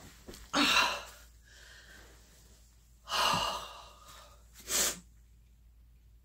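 A woman breathing while she cries: three short breaths, with quiet between them.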